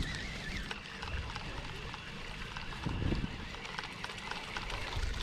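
Wind rumbling unevenly on the microphone over a steady hiss of water around a small boat.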